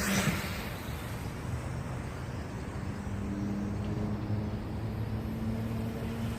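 Steady outdoor noise with a vehicle passing right at the start. From about three seconds in, a faint steady hum of several tones joins it.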